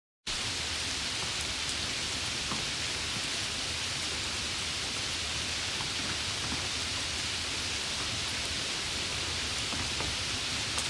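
Light rain falling steadily, an even hiss with occasional distinct drops pattering.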